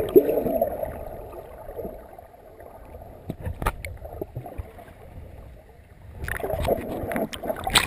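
Muffled underwater sound picked up by a waterproof action camera held below the surface: a dull rush of moving water with a few sharp clicks, turning into louder, fuller water sloshing about six seconds in as the camera comes back up through the surface.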